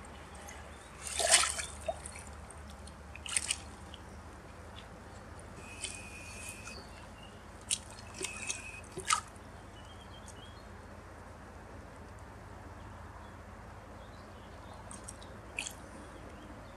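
Lake water splashing and dripping as a large mirror carp is lifted from a floating retention cradle and held in the shallows for release: a handful of short splashes, the loudest about a second in, a cluster between six and nine seconds, and calmer lapping in between.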